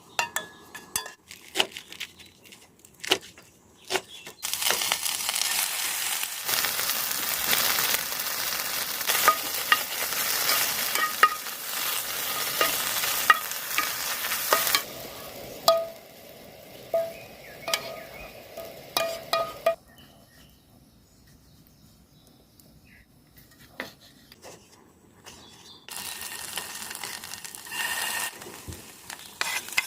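Food sizzling in a frying pan, with light clinks and scrapes of a utensil. The sizzle starts loud a few seconds in, fades to light clicking about halfway, goes quiet, and comes back briefly near the end.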